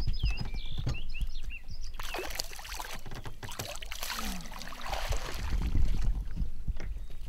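Hooked fish splashing at the surface as it is scooped up in a landing net, water churning and rushing through the mesh for a couple of seconds, then running off the net as it is lifted. Low knocks of the net handle and feet on the boat deck go along with it.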